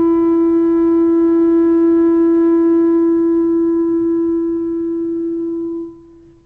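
Soundtrack music: a single woodwind instrument holding one long steady note, which dies away about six seconds in.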